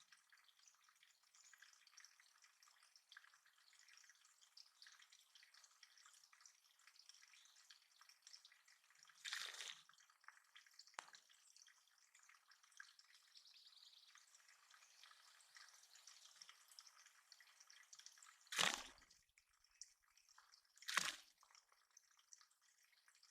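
Water dripping and splashing in a small backyard bird pond. Three louder plops stand out: one about nine seconds in and two close together near the end. Faint, busy birdsong sits in the background.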